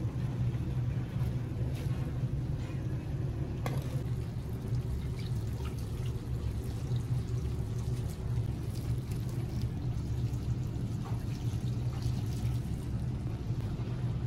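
Steady low mechanical roar, with a few faint clicks and knocks over it.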